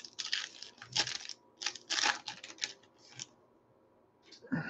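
Paper wrapper of a baseball card pack crinkling and tearing as it is ripped open by hand, in irregular crackly bursts for about three seconds.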